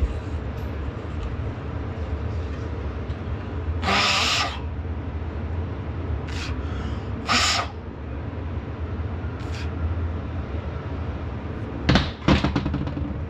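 Metal hand tools being worked on a cast-iron tractor manifold clamped in a vise: a few short noisy strokes about half a second long, and a cluster of sharp metal clicks near the end, over a steady low hum.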